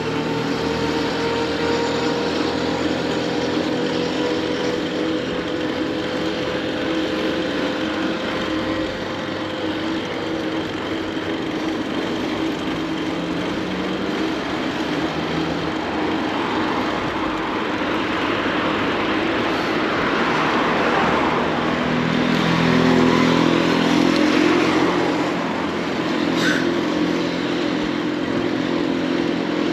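City road traffic: vehicle engines running close by over a steady rushing noise, one engine slowly dropping in pitch early on and another growing louder about two-thirds of the way through before easing off.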